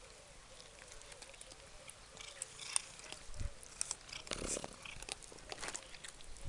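Several cats crunching dry kibble from plastic bowls: irregular crisp crunches and clicks, growing busier from about two seconds in.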